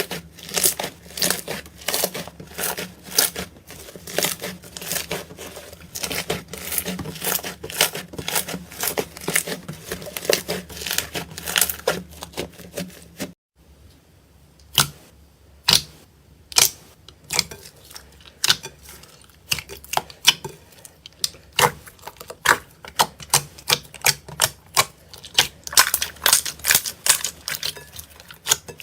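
Slime being squeezed and pressed by hand, giving a dense run of sticky clicks and pops. It stops briefly about halfway, then goes on with sparser pops that grow dense again.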